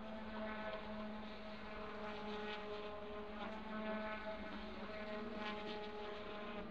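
Racing car engines droning steadily, with several held pitches that shift a little as the engines change speed. No single car passes close by.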